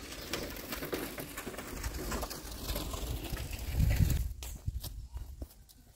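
A dove cooing, amid scattered light clicks and rustles.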